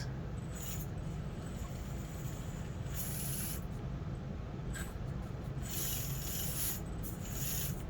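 Heavily modified Axial SCX24 1/24-scale crawler with a Furitek Lizard brushless motor crawling slowly over the course: a faint whir of the motor and drivetrain with tires rubbing and scraping on the obstacles, coming in short spells.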